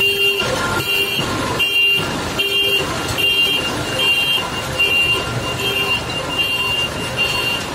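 Heavy machine's warning beeper sounding a high beep a little more than once a second, over the noise of its running engine.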